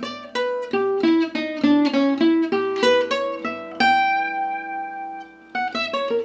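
Acoustic guitar playing a slow single-note gypsy jazz phrase, picked note by note with alternating down and up strokes. The run of quick notes pauses on one held, ringing note about four seconds in, then picks up again near the end.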